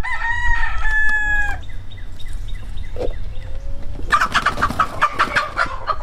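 Farmyard chickens: a rooster crowing in a long held call over the first second and a half, then soft clucking, and from about four seconds in a burst of rapid, loud squawking.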